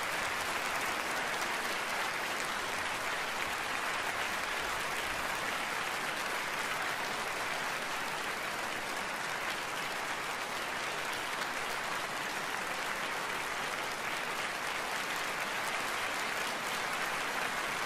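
Large audience applauding steadily, a dense even clapping that neither builds nor dies away.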